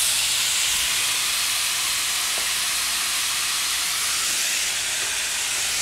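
Skillet of skirt steak strips, kielbasa sausage and onions frying with a steady sizzle.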